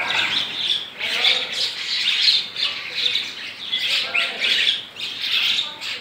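A large flock of small birds calling all at once: a dense chatter of overlapping squawks and chirps that swells and fades about once a second.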